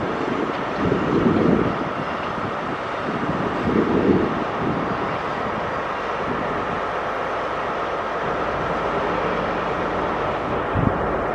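A GWR 'Castle' HST, a diesel train with Class 43 power cars, moving away along the track, its engines and wheels on the rails giving a steady drone. There are low rumbling surges in the first few seconds, and a short low thump near the end.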